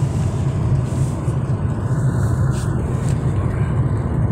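Car driving on a rain-wet road, heard from inside the cabin: a steady low rumble of engine and tyres.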